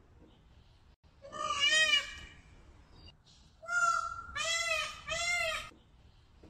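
Indian peacock calling: one loud, wailing call about a second in, then three more in quick succession, each rising and falling in pitch.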